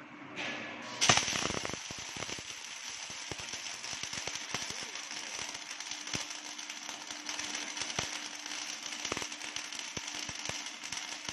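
Two MIG welding arcs of an automatic circular-seam welder striking about a second in, then crackling and spitting steadily with irregular sharp pops as both torches weld at once.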